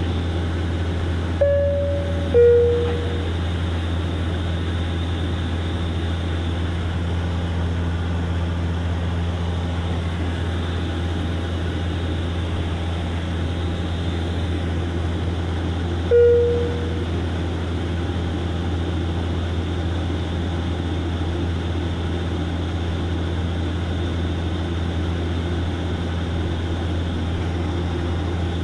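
Cabin drone of a DHC-8-Q400's Pratt & Whitney PW150A turboprops and six-bladed propellers in cruise: a loud, steady low hum. A two-note chime, high then lower, sounds about a second and a half in. A single lower chime sounds about sixteen seconds in as the seat-belt sign comes on.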